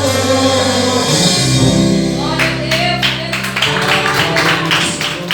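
Gospel music with singing: held chords at first, then from about two and a half seconds in a quick, even run of percussive strokes comes in over them.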